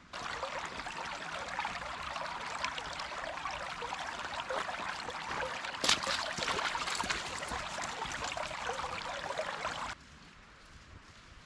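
Running water of a small stream, a steady rushing trickle that cuts in suddenly and stops suddenly about ten seconds in. There is one sharp click about six seconds in.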